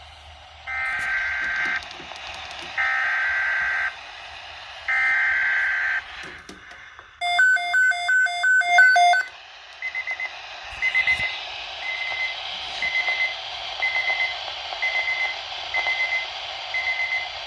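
Weather radio alert signalling: three buzzy digital data bursts about a second long, which are the SAME header coding a new Environment Canada bulletin. Then the receiver's alarm sounds, a fast beeping in several tones for about two seconds, followed by a single high beep repeating about once a second.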